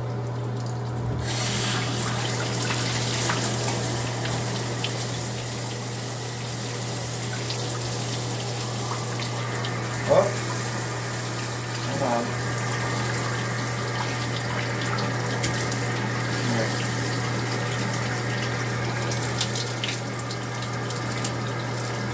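Shower running: a steady hiss of spraying water over a constant low hum, with a couple of brief, faint sounds about ten and twelve seconds in.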